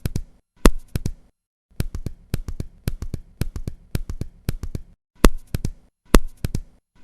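Synthesized heart sounds with a triple, three-tone beat. A slower rhythm with a loud first tone (a quail rhythm) stops about a second in and, after a short pause, gives way to a faster, quieter three-tone rhythm (a gallop rhythm). The slower, loud-first-tone rhythm returns about five seconds in.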